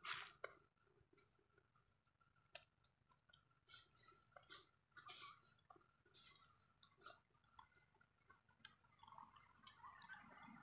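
Faint, scattered clicks and dry-leaf crackles with some chewing, from a long-tailed macaque picking at food on the leaf litter.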